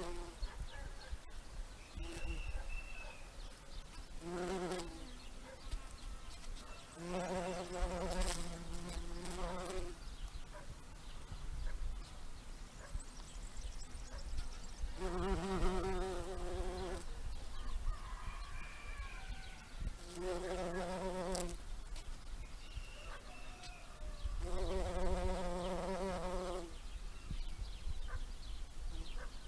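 Bumblebee buzzing as it flies between flowers collecting pollen, in five bouts of a steady low hum a second or three long, fading in and out as it comes and goes. Faint bird chirps sound in the gaps.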